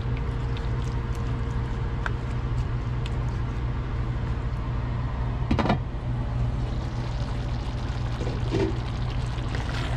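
Sweet chili sauce with vegetable strips simmering in a stainless steel pan: soft bubbling over a steady low hum, with one brief sharp sound about halfway through.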